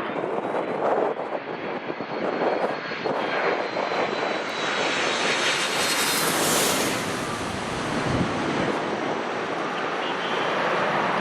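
Jet airliner passing low overhead, its engine noise building to a loud peak about six seconds in and then easing off.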